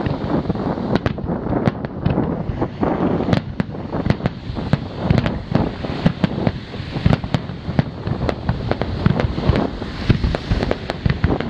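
Fireworks display: aerial shells bursting in a dense, irregular barrage of booms and sharp cracks, several each second, over a constant low rumble.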